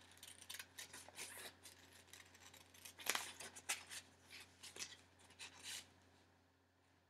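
Scissors snipping paper in short, irregular cuts, fussy-cutting around a small traced shape; the snipping stops about six seconds in.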